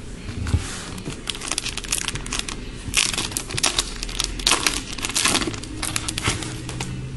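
A trading card pack's wrapper crinkling in the hands as it is handled and opened, with an irregular run of crackles that is loudest from about a second in to near the end.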